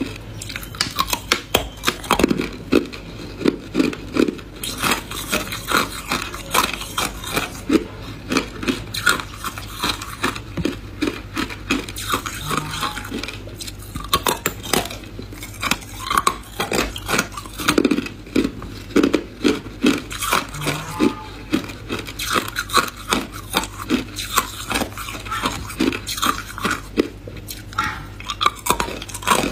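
A person biting and chewing hard clear ice: a dense, irregular run of sharp crunches and cracks as the ice breaks between the teeth.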